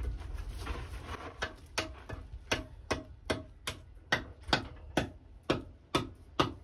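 A tool striking masonry in a steady rhythm, about two to three sharp knocks a second, each with a short ring, starting about a second and a half in. This is work on the concrete-block and stone wall.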